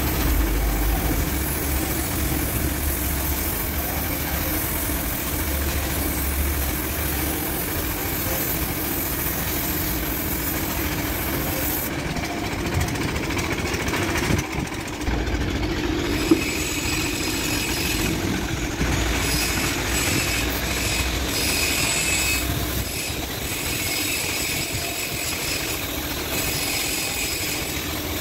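Steady mechanical running noise with a hiss that changes partway through, and one sharp knock about sixteen seconds in.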